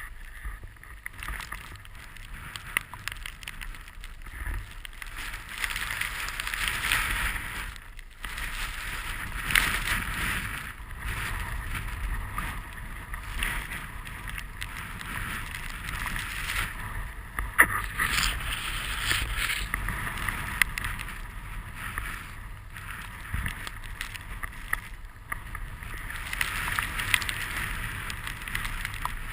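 Snowboard sliding through fresh powder snow, a hiss that swells and fades with each turn. Under it runs a low rumble of wind buffeting the microphone.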